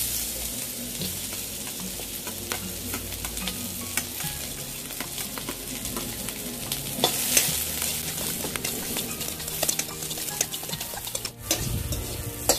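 Sliced onions sizzling as they fry in hot oil in a steel kadhai, with a metal spatula scraping and clinking against the pan as they are stirred.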